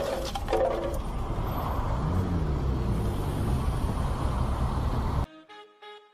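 Road vehicle noise: a car's engine and tyres running loud and even, with an engine note that rises and falls about two seconds in. It cuts off suddenly about five seconds in, and brass music follows.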